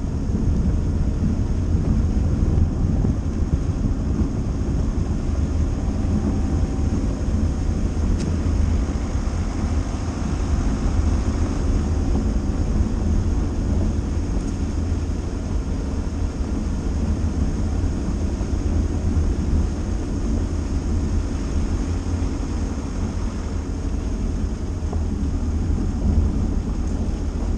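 A Dacia Duster driving off-road: a steady, heavy low rumble of engine and tyres on a rough track.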